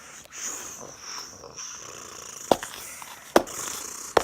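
A person imitating horse sounds by mouth: a breathy blowing sound, then three sharp clicks about a second apart.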